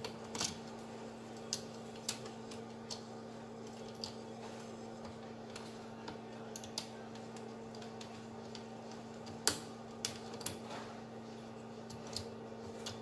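Scattered light plastic clicks and taps as the front cover of an Asus K555L laptop's screen housing is fitted onto its bezel, the sharpest click about nine and a half seconds in, over a steady low hum.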